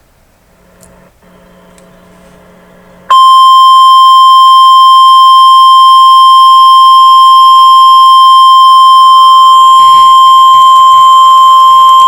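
Weather radio warning alarm tone: a single loud, steady, high-pitched tone of about 1050 Hz that starts abruptly about three seconds in, signalling a tornado warning. Before it there is only a faint low hum.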